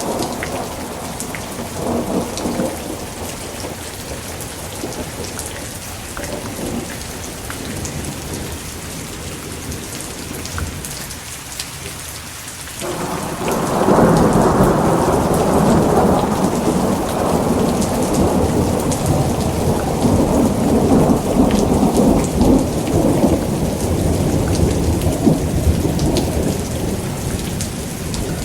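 Thunderstorm: steady heavy rain hissing, with a fading roll of thunder at first. About halfway in, a louder thunderclap breaks suddenly and rumbles on.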